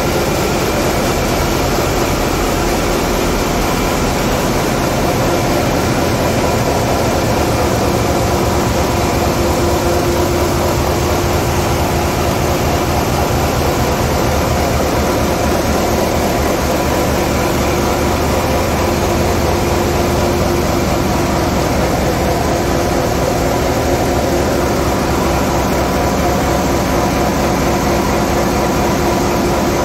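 Large in-line diesel main engines of a cruise ship running in their engine room: loud, steady machinery noise with a constant hum and hiss that never changes.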